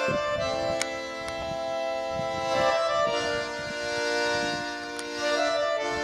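Background music with sustained, held chords that change every second or two.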